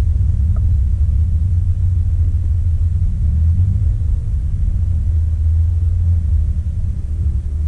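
Steady low rumble of a Subaru WRX's turbocharged flat-four engine and exhaust, heard from inside the cabin as the car rolls slowly.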